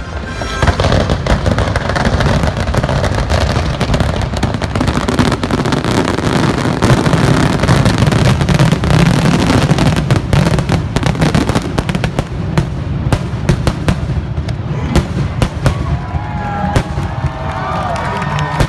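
A loud fireworks display: rapid, dense bangs and crackling over a constant low rumble.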